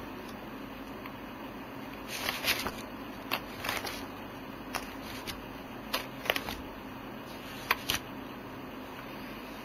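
Paper rustling as book pages and loose sheets are turned and handled: a series of short, irregular rustles and flicks from about two seconds in until near the end, over a steady low hum.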